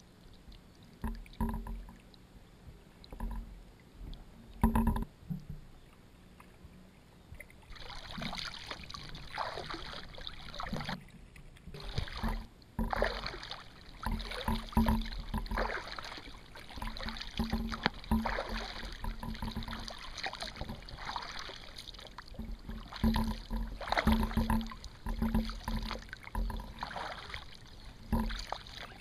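Paddling an Advanced Elements AdvancedFrame kayak. A few sharp knocks come in the first five seconds. From about eight seconds in there is a steady wash of splashing and dripping water, rising and falling with each paddle stroke.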